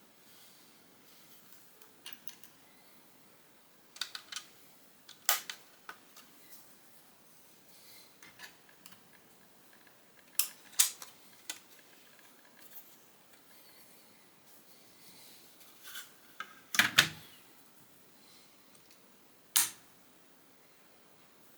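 Plastic Lego bricks clicking and tapping as pieces are handled and pressed together, in scattered single clicks with a louder cluster of clatter about two thirds of the way through.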